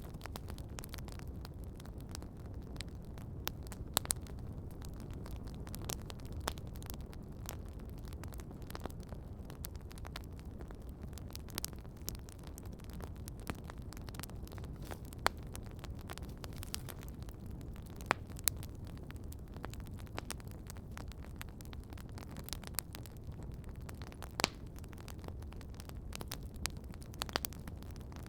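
Wood campfire burning: a steady low rush of flames with irregular crackles and now and then a sharper pop from the wood.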